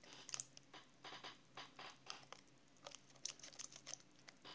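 Small blue children's scissors cutting a strip of clear adhesive tape off the roll: faint, irregular snips and crinkles of the tape.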